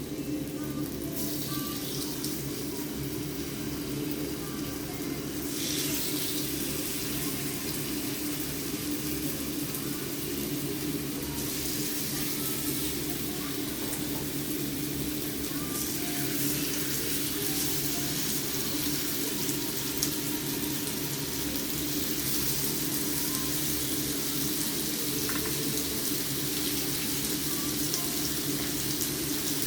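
Marinated chicken breast sizzling in olive oil in a frying pan, a steady hiss whose strength steps up and down a few times, over a steady low hum.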